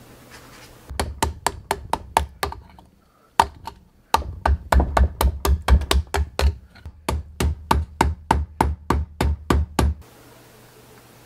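Hammer blows driving a wood chisel into a log to hollow it out: a quick run of about seven strikes, a pause, then a steady run of about four strikes a second that stops shortly before the end.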